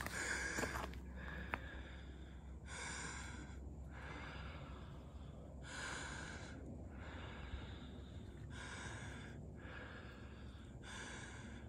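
A hiker breathing hard from climbing a steep hillside: five long, hissing breaths, roughly one every three seconds.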